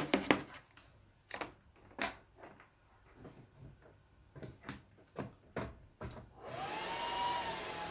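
Scattered clicks and knocks as the power cord is plugged into an HPE Aruba 6100 network switch. About six and a half seconds in, the switch's cooling fans start up at full speed with a sudden steady rush and a rising whine, as they do at boot before slowing down.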